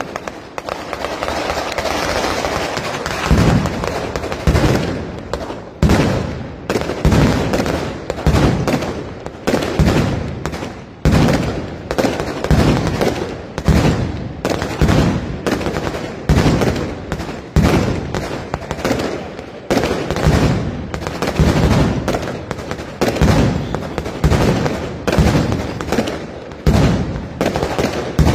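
Night mascletà pyrotechnics: dense firecracker crackling, then from about three seconds in a steady run of heavy bangs, roughly one every second, over continuous crackle.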